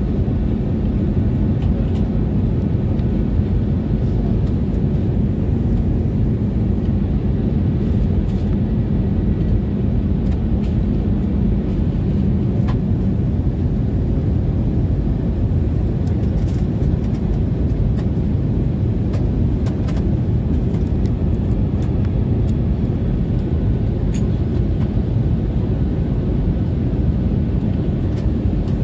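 Steady low cabin noise inside an Airbus A320neo airliner on its landing approach: engine and airflow noise, even in loudness, with a faint steady hum under it.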